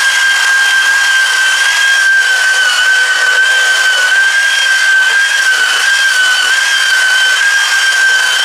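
Electric variable-speed rotary buffer with a wool pad running against a car door, cutting clear coat that has been colour-sanded to 3000 grit: a steady high motor whine over the hiss of the pad on the paint, its pitch wavering slightly now and then.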